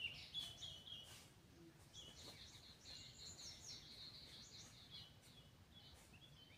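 Faint chirps and trills of small wild birds, with a denser run of high chirps in the middle.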